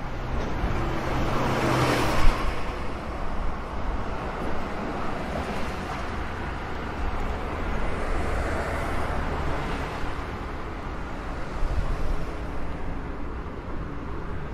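Street traffic with double-decker buses passing close by: a low engine hum swells and fades about two and a half seconds in, with a short knock at its peak, then a steady rumble of engines and road noise.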